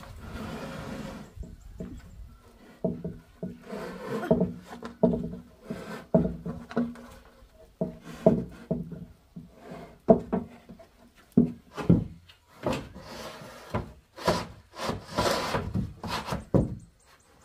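A corrugated roofing sheet scraping and knocking against wooden roof poles as it is pushed and slid into place. The rubs and knocks come at irregular intervals, with sharper knocks in the second half.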